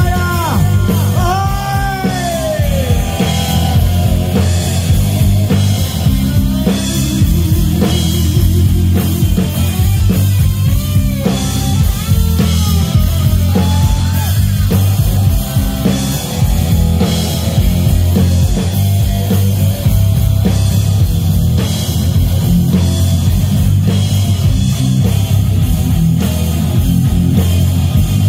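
Live rock band with an electric guitar solo over bass and drums, the guitar's notes bending up and down in pitch.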